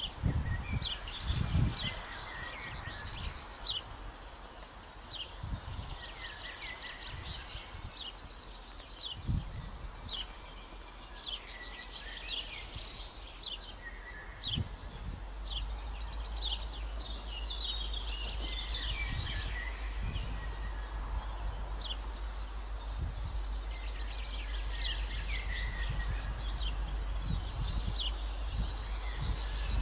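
Songbirds singing from the trees: many short chirps and rapid trills, repeating throughout. Low thumps sound now and then, and a steady low rumble comes in about halfway.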